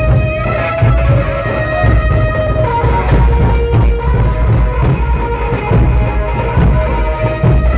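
Large barrel drums (dhol) beaten hard in a dense, driving rhythm, with a held melodic line over the drumming that changes pitch about three seconds in.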